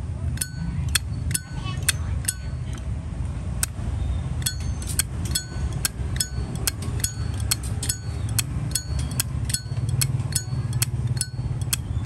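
Zippo lighter lid being flipped open and snapped shut over and over, giving sharp metallic clinks with a short ringing ping, about two a second and sometimes in quick pairs. A steady low rumble runs underneath.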